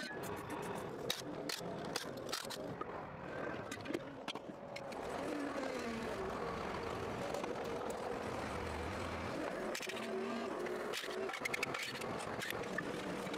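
Sharp metal clicks and knocks, as of tools and a jack, then from about five seconds in an engine running steadily.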